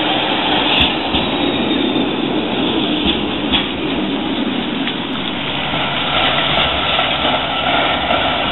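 De Lijn Hermelijn low-floor tram running past close by on street track, a steady rumble of wheels on rail with a couple of clicks about halfway through.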